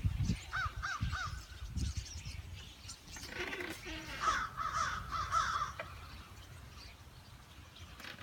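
Birds calling outdoors, in a quick run of three short calls and then a longer string of repeated calls a few seconds later. Low rumbling noise in the first couple of seconds.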